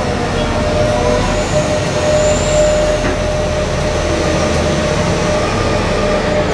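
BelAZ 75710 giant mining dump truck driving past, its diesel engines running with a steady low drone.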